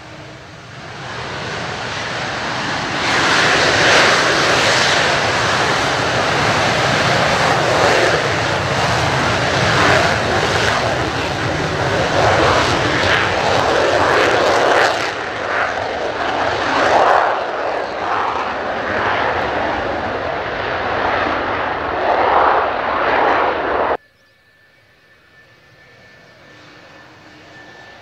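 Twin General Electric J79 turbojets of F-4EJ Kai Phantom II fighters running at high power, a loud, rumbling jet noise that builds over the first few seconds and surges and fluctuates as the jets take off. About six seconds before the end it cuts off abruptly to a much quieter jet whine with a thin high tone.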